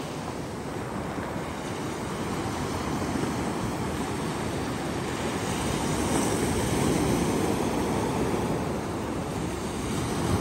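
Sea surf washing onto the shore, a steady rush that swells louder through the middle as waves break and eases toward the end.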